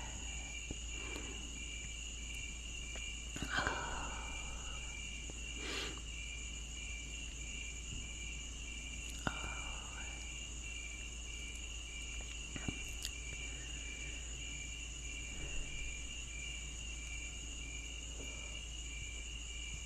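Insects chirping steadily, with one call pulsing about once or twice a second, and a few faint breathy sounds now and then.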